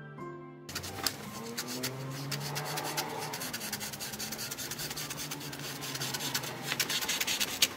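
Scissors cutting through a sheet of self-adhesive vinyl film on its paper backing: a continuous crackling, rasping rustle with many small clicks, starting about a second in.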